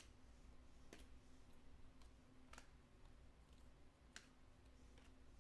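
Near silence, with a handful of faint, sharp clicks, roughly one a second, the clearest about four seconds in: glossy Panini Select baseball cards being thumbed through and slid off a hand-held stack.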